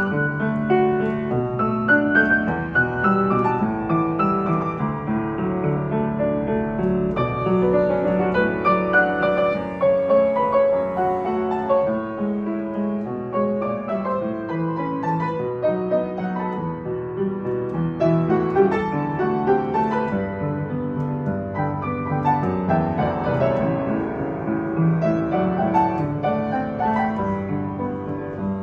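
Kawai KL-70W upright piano being played: a continuous, flowing piece with many notes and chords across the middle and lower range.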